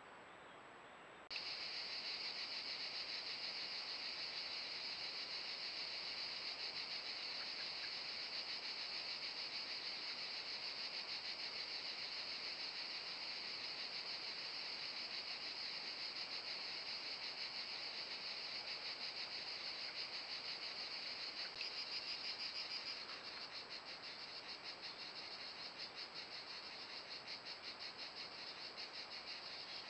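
Steady, high-pitched insect chorus (crickets) starts abruptly about a second in. About two-thirds of the way through it turns to a quicker pulsing and gets slightly quieter.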